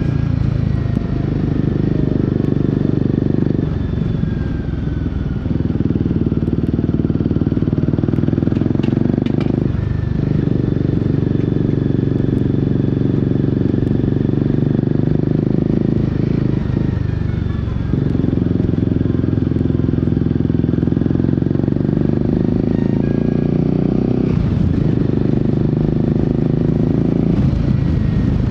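Royal Enfield Guerrilla 450's single-cylinder engine, fitted with a Black Widow aftermarket exhaust, running steadily on the road. The exhaust note drops out briefly about six times, as at throttle lifts and gear changes.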